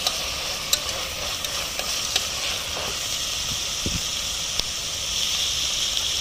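Sliced onions and green chillies sizzling steadily in hot coconut oil in a metal pot, with a few light clicks of a metal spoon against the pot.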